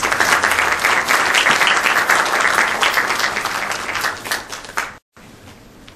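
Audience applauding, a dense patter of many hands clapping that dies away after about four and a half seconds, followed by a brief dead gap.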